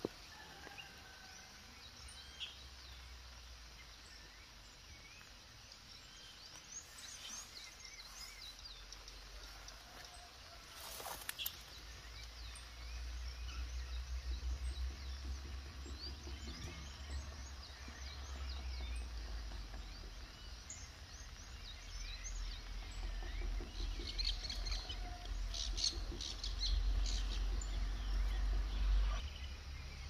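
Several wild birds chirping and singing, with many short high calls overlapping and scattered throughout. Underneath is a low rumble that grows from about halfway through and is loudest near the end, and there is one sharp click a little over a third of the way in.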